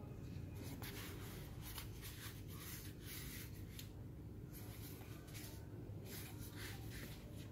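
Faint scraping and rustling of a small cardboard parcel being turned over in the hands, fingers rubbing on the cardboard and packing tape in short, irregular strokes.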